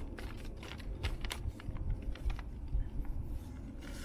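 A budget Crivit knife's blade being drawn through thin paper in a sharpness test: a run of small, irregular crackles and clicks. The blade cuts less well than a sharper knife would.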